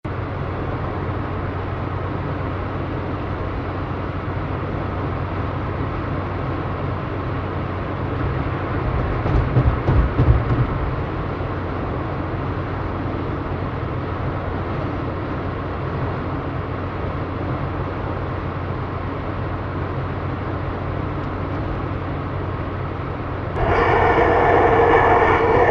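Steady road-traffic rumble with a low hum, swelling louder as a vehicle passes about ten seconds in. Near the end a vehicle horn starts sounding and holds.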